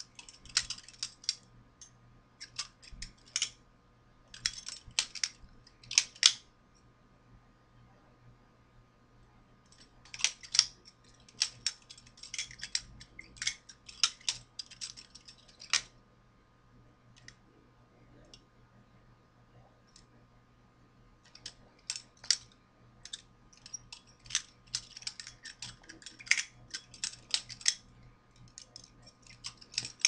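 Balisong (butterfly knife) being flipped: its metal handles clicking and clacking against each other and the blade in quick flurries, with pauses of a few seconds between runs.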